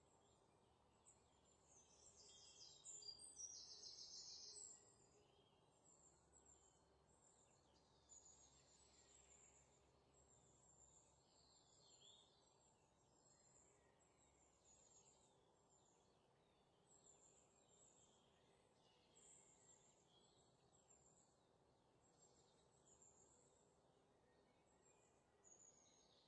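Near silence, with faint, short, high chirps that recur every second or so and are a little louder for a few seconds near the start.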